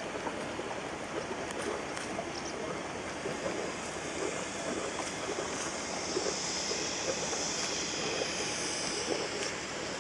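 Steady rush of water and wind from a boat under way, with a hiss that grows a little brighter in the middle.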